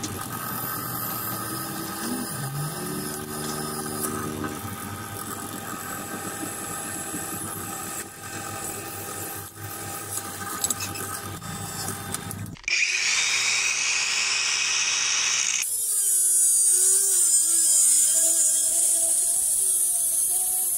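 A drill press boring through a flat steel bar, its motor running steadily. About two-thirds of the way in it gives way to an angle grinder's cut-off disc cutting the steel bar: louder, a harsh grinding with a whine whose pitch wavers as the disc bites.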